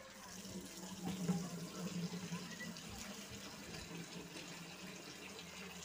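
Water being poured from a small steel pot into the open end of a salt-filled plastic pipe, a steady splashing trickle, with a low steady hum underneath.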